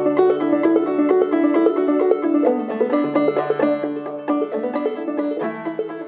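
Clawhammer banjo playing a quick old-time tune, a rapid stream of plucked notes over a ringing low note, gradually getting quieter toward the end.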